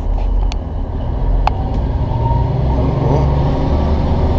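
Class 150 diesel train's underfloor engine heard from inside the carriage: a steady low rumble whose engine note rises and grows louder about a second in as the train pulls away slowly. One sharp click about a second and a half in.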